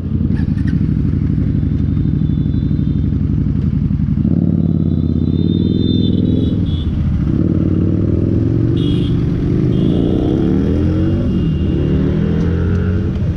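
Motorcycle engines idling steadily. A second engine note joins about four seconds in, and engine pitches slide up and down in the last few seconds.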